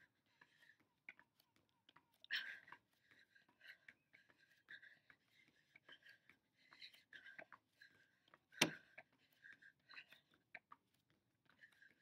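Faint, quick, hard breaths and soft taps of hands and feet on an exercise mat during mountain climbers, with one sharp knock about two-thirds of the way through.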